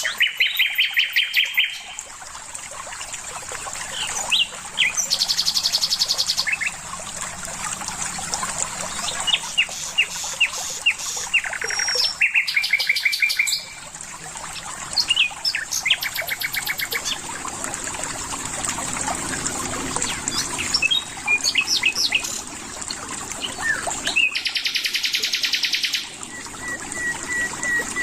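Songbirds singing: a run of different songs made of fast trills and short chirps, each lasting one to two seconds, repeated throughout. A steady high hiss runs underneath.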